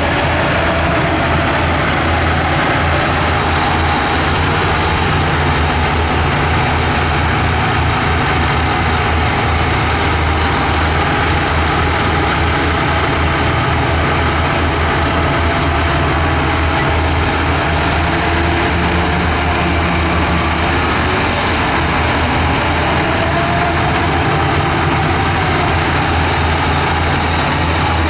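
Diesel engine of heavy earthmoving machinery running steadily.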